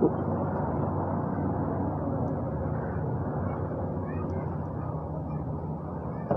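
Gas station fuel dispenser pumping gasoline into a motor scooter's tank: a steady low hum that drops away near the end as the fill stops.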